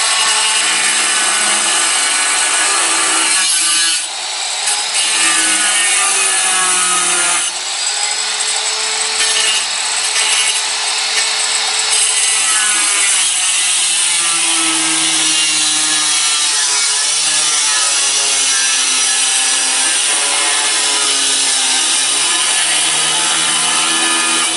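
Handheld electric tile cutter's blade grinding through a glazed ceramic floor tile: a steady grinding hiss over a motor whine whose pitch wavers as the load changes, with brief dips in level about four and seven seconds in.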